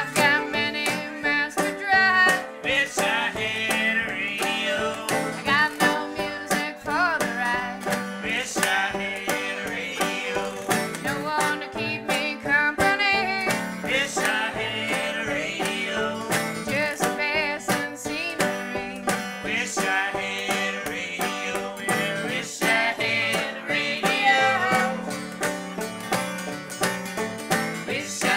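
Acoustic string band playing a lively bluegrass-style tune, with banjo and mandolin picking.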